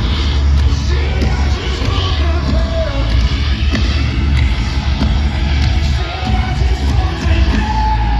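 Metalcore band playing live and loud through a large festival PA, heard from within the crowd: heavy distorted guitars, pounding drums and deep bass, with singing over it.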